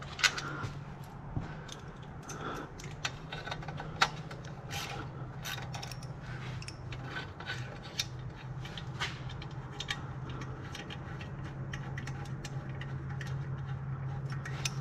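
3/8-inch-drive hand ratchet with a 12 mm socket on an extension working a bolt: scattered ratchet clicks and metal clinks, over a steady low hum.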